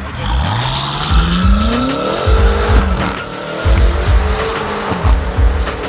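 A car engine revving up, its pitch rising steadily over about two seconds, mixed with music that has a heavy bass beat.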